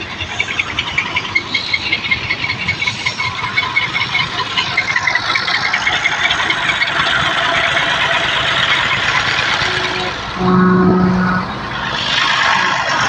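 Old diesel tractor engine running under load with a fast, rough clatter as it tows a trailer. About ten seconds in, a loud steady pitched tone sounds for about a second.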